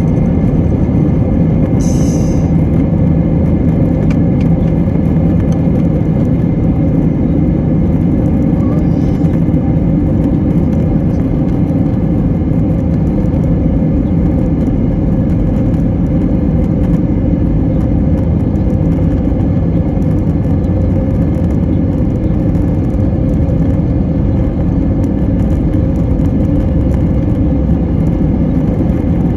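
Airbus A321 jet engines running at takeoff power: a loud, steady, deep rumble that holds level throughout, with a short high-pitched sound about two seconds in.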